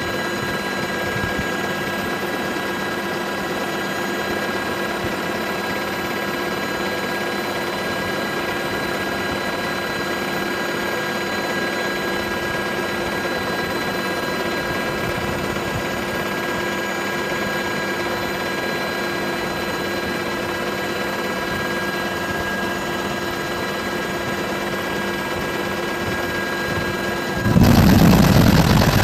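Helicopter noise heard inside the cabin: a steady drone and turbine whine with several constant high tones. Near the end it switches abruptly to a louder, rougher rush.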